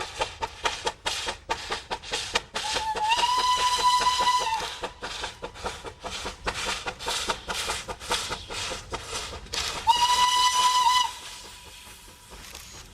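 Steam locomotive under way with rapid, even exhaust chuffs, sounding its whistle twice: a long blast about three seconds in and a shorter one near the ten-second mark. After the second blast the chuffing fades to a steady hiss.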